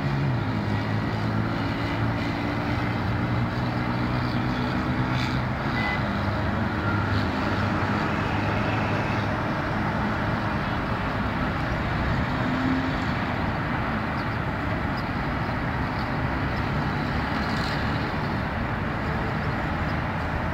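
Steady road traffic noise from busy streets. A heavy vehicle's engine hum stands out for the first five or six seconds, then fades into the general traffic.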